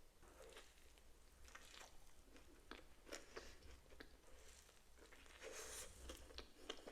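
Faint chewing of a Crumbl butter cake cookie: irregular soft mouth clicks and smacks.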